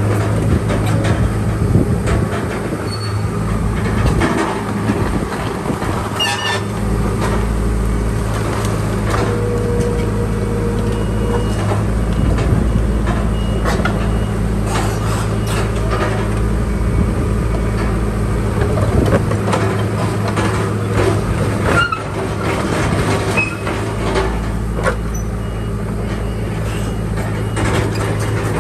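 Crawler bulldozer's diesel engine running steadily, with repeated metallic clanking and squeaks from the machine's tracks and blade as it works.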